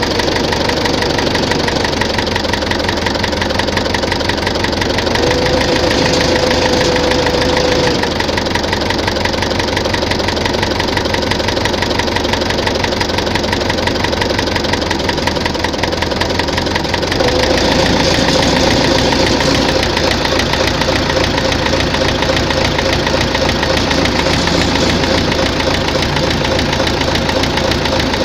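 Tractor diesel engine running at idle to mid revs with a steady rhythmic knock, its note shifting a little past halfway. The knock is not from the fuel pump or injectors; the owner traced it to heavy wear in the fourth cylinder.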